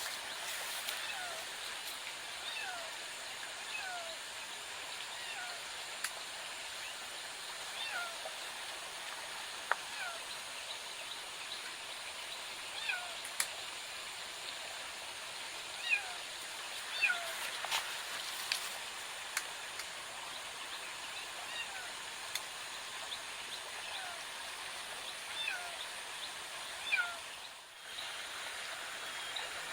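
Short, falling animal calls repeat every second or so over a steady hiss of outdoor background noise, with a few sharp clicks between them.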